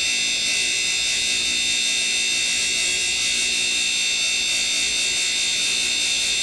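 Darex E90 end mill sharpener's motor and grinding wheel running with a steady, high-pitched whine.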